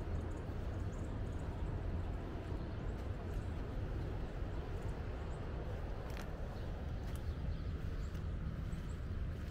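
Steady low rumble of outdoor background noise, with a few faint ticks about six to seven seconds in.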